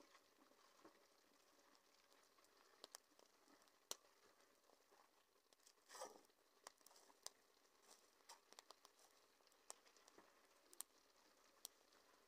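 Near silence, broken by faint, scattered sharp crackles and pops from the small wood fire burning under the cauldron, about a dozen in all, the loudest around four and six seconds in.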